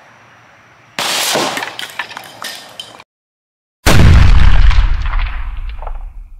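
Spray paint cans shot through with a 9mm pistol bursting: a sudden blast about a second in that trails off in a hiss of escaping paint, then a second, louder burst heard up close, with a heavy low rumble, fading over about two and a half seconds.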